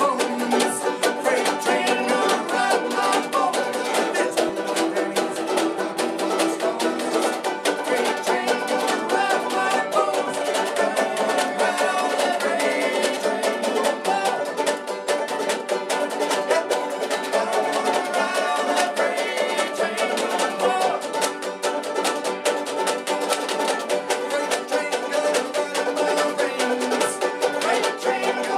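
Several banjos picked together in a lively bluegrass-style tune, with a man singing over them.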